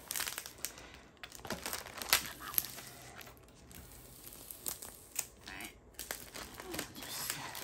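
Clear plastic film on a diamond-painting canvas crinkling and crackling as hands smooth it flat and peel it back. The crackles are irregular, with a couple of sharper snaps about two seconds in. The film is very staticky.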